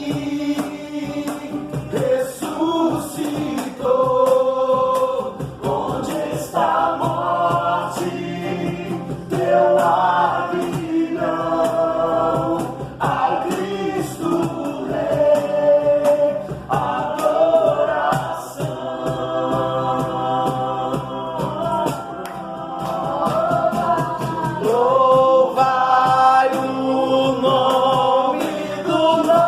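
Gospel worship music: several voices singing together over instrumental accompaniment.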